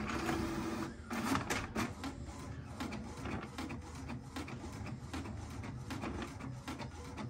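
HP Ink Tank 319 all-in-one inkjet printer starting a colour copy. A motor whir sets in suddenly, a quick run of clicks follows about a second in, and then the mechanism keeps running steadily with many small clicks.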